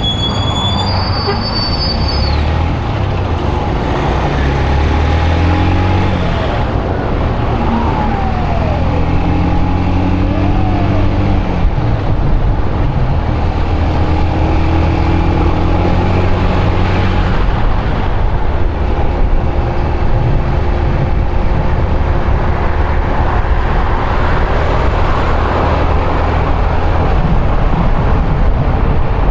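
Yamaha YBR125's single-cylinder four-stroke engine running as the motorcycle rides, rising in pitch as it accelerates and then holding a steady cruise, under constant wind and road noise. A high squeal cuts off about two seconds in.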